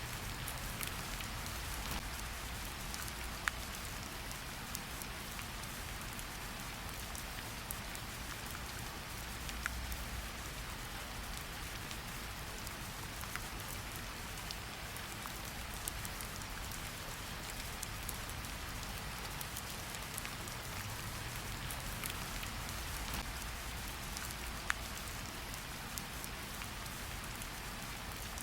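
Steady rain with a low rumble underneath, and scattered sharp pops from a crackling wood fire in a fireplace.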